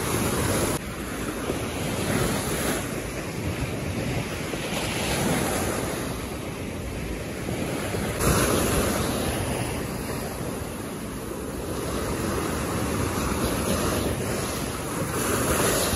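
Sea waves breaking and washing in, surging and easing every few seconds, with wind buffeting the microphone.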